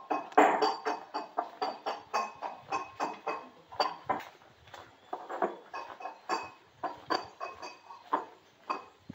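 Footsteps on a stone-paved alley: a quick, uneven run of sharp clicks, two to three a second, from people walking.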